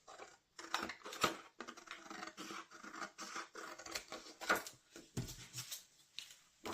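Scissors cutting through a card template, a run of irregular snips.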